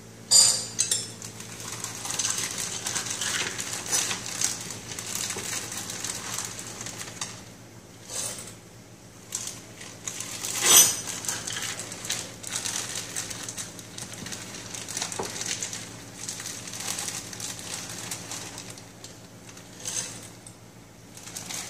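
Semi-sweet chocolate chips scooped with a measuring cup and poured into a glass bowl, rattling and clinking against the glass in irregular spurts. The loudest clinks come about half a second in and about eleven seconds in.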